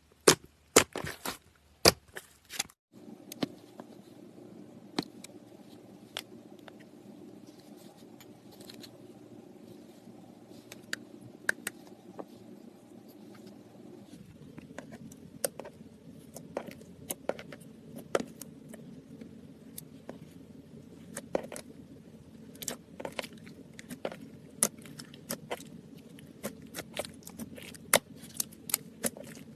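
Slime being worked by hand, making many sharp crackling clicks and pops, densest and loudest in the first three seconds, over a steady low hum.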